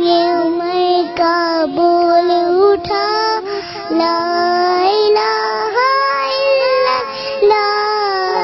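A young girl singing a naat, an Islamic devotional song, in long held notes that bend from phrase to phrase.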